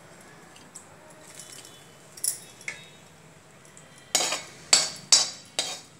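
A metal spoon scraping and stirring seeds in oil in a kadai, in sharp strokes about two a second from about four seconds in. Before that come a few light clinks, two of them sharper a little over two seconds in.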